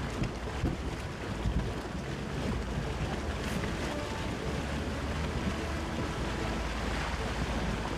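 A Jeep Gladiator fording a shallow river: water rushing and splashing around its wheels, with wind buffeting the microphone throughout.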